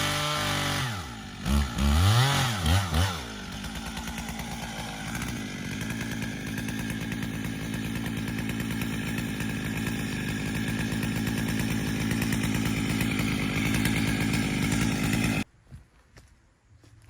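A chainsaw, used for milling oak slabs, runs at high speed, then the revs drop and it is blipped a few times. It settles into a steady idle for about twelve seconds and is then shut off suddenly, leaving only a few faint clicks.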